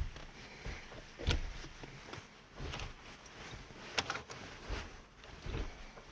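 A handful of short, soft knocks and clicks at irregular intervals, with faint rustling between them: a car's gear lever being worked back and forth by hand through a newly fitted shift knob.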